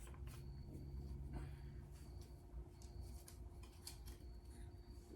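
Faint handling noises: a bungee cord and a small plastic mount being worked by hand, with scattered light clicks and rustles.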